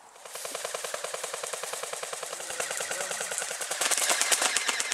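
Airsoft gun firing full-auto: a long, rapid, even stream of clicking shots that starts just after the beginning and grows louder toward the end.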